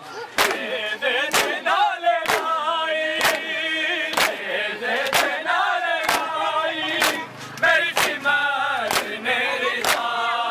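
Group matam: a crowd of men slapping their bare chests in unison, sharp slaps about once a second, while voices chant a mourning lament over the beat.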